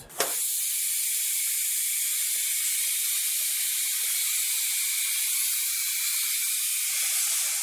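Air-operated motorcycle lift table venting air in a loud, steady hiss as it lowers the motorcycle. The hiss starts abruptly.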